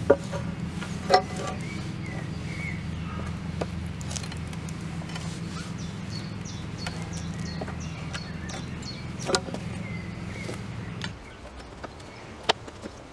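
Steel pry bar pulling rusty nails from old boards: a few sharp metal-on-wood knocks and clanks, the loudest about a second in and near nine seconds. Under them runs a steady low hum that stops about eleven seconds in, with birds chirping.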